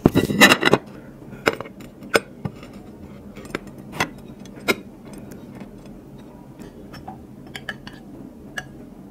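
Ceramic plates and glass bowls clinking as plates of biryani are handled on the table. A rattling clatter in the first second gives way to single sharp clinks about a second apart, then to faint taps.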